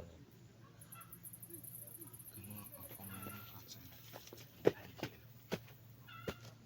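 Short, high animal calls a few times, and three sharp knocks in quick succession after the middle.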